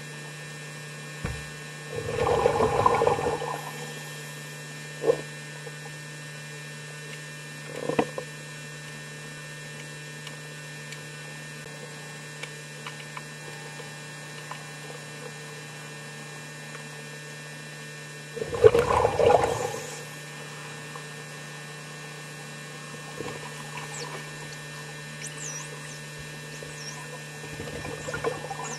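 Underwater recording with a steady electrical hum throughout, broken by two louder surges of water noise, about two seconds in and again just before the twentieth second, and a couple of short clicks between them.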